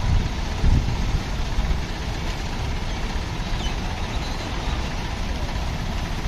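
Heavy diesel engine running steadily with a low, pulsing rumble, briefly louder about a second in.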